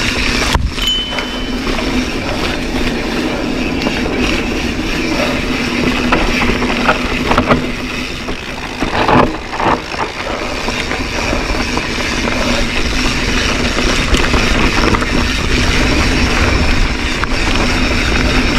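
Mountain bike riding down a dirt trail: a steady rush of wind and tyre noise with the bike rattling over the ground, and a few sharper knocks over bumps about halfway through.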